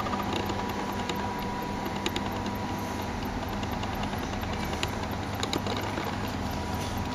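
Steady machine hum over a low rumble, with scattered faint clicks.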